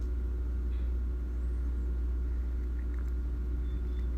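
A steady low hum, unchanging throughout, with a couple of faint small ticks.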